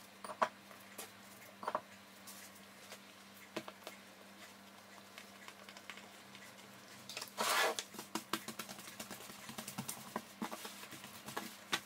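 Quiet hand-handling of risen pizza dough, pressed and stretched out with the fingertips on a counter mat dusted with cornmeal and flour: scattered soft taps, a brief scuffing rub about seven and a half seconds in, then a run of quick light taps and rubs near the end, over a faint steady hum.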